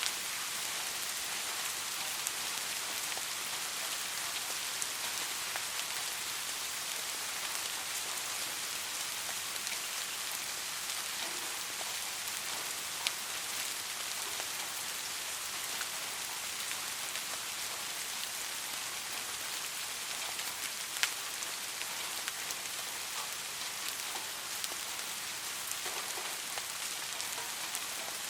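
Steady soft rain falling, an even hiss with scattered louder drop taps; a sharper tap stands out about 13 seconds in and another about 21 seconds in.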